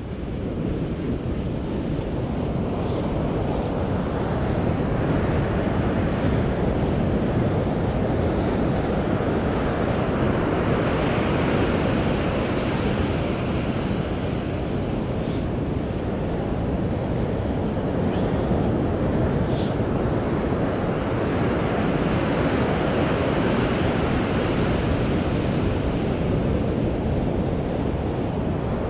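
Ocean surf breaking and washing up a sandy beach, a continuous rush that swells and eases, with wind buffeting the microphone.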